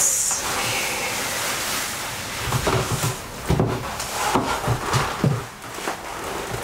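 Hands rubbing and squeezing a leather jacket worn over a silky satin dress. A steady rustling is followed, from about two and a half seconds in, by a run of irregular short rubbing and knocking sounds.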